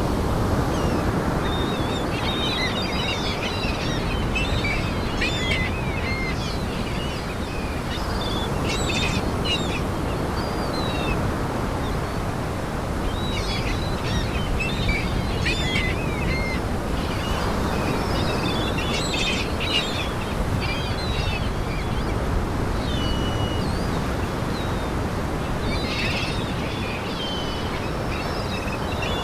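Gulls calling in many short overlapping cries, in bursts a few seconds apart, over a steady wash of surf.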